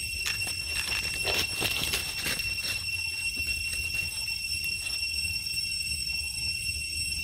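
A steady high-pitched insect drone from the surrounding trees, with dry fallen leaves rustling and crackling for the first few seconds.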